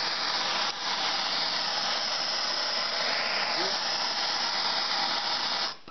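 Handheld gas torch burning with a steady hiss while its flame heats the screws holding a brake disc's ABS ring gear, to soften their blue Loctite. The hiss dips briefly about a second in and cuts off suddenly near the end.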